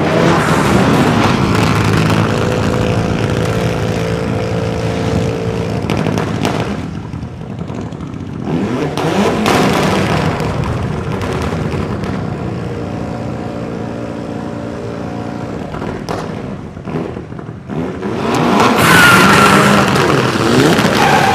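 Mitsubishi Lancer Evolution rally car's turbocharged four-cylinder engine revving hard through the gears, rising and falling in pitch. It eases off twice, about seven and seventeen seconds in, then pulls up again, loudest near the end.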